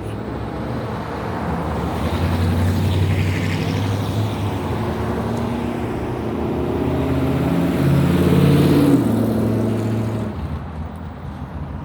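Loud car exhaust as cars drive past, the engine note climbing in pitch as one accelerates and loudest about eight to nine seconds in, then falling away about ten seconds in.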